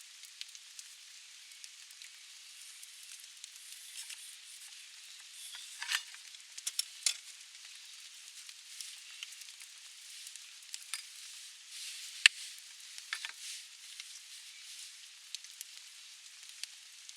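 Food sizzling as it fries, with scattered small crackles and a few sharper knocks, the loudest about twelve seconds in.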